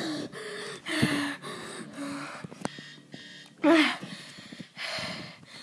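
A boy's voice humming a string of short held notes, then a louder short vocal sound about four seconds in.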